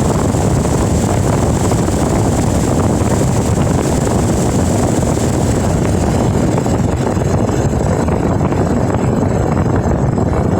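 Steady, loud rush of heavy rain, mostly deep in pitch, its upper hiss thinning out about six seconds in.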